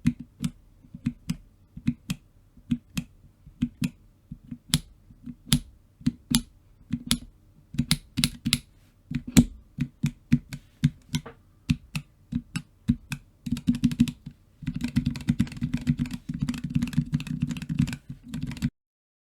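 Keystrokes on a mechanical macropad fitted with Outemu Ice Purple tactile switches: single presses at about two or three a second, then, around three-quarters of the way through, a fast continuous flurry of key presses that stops abruptly near the end.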